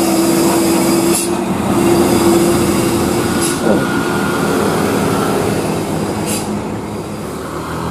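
Heavy cargo truck's diesel engine droning steadily under load as it passes close and pulls away up the bend, with three short high hisses about a second, three and a half and six seconds in.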